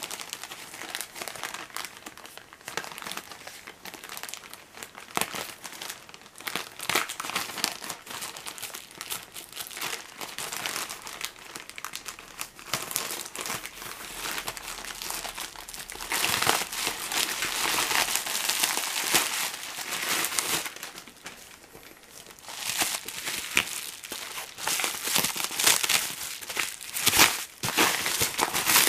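Plastic courier mailer bag crinkling and rustling as it is cut open with scissors and pulled apart by hand, then bubble wrap crinkling around a box near the end. The crinkling comes in irregular spells, louder in the second half.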